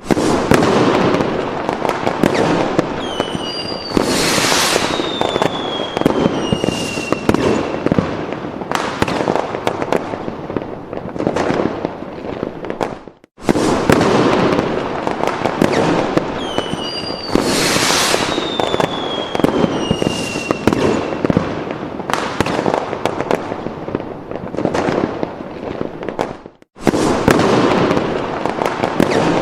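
Fireworks sound effect: dense crackling bangs with rockets whistling as they fall in pitch. It plays as a loop of about 13 seconds that cuts out briefly and restarts twice.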